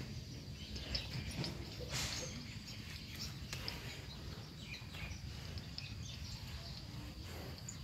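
Quiet rural outdoor ambience: scattered short bird chirps and a faint steady high insect drone over a low rumble.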